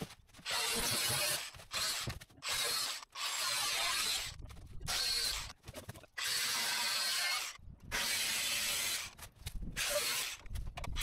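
A saw cutting through the thin, rusted sheet-metal floor panel of an old car body. It goes in a run of rasping strokes, each up to about a second and a half long, with short breaks between them.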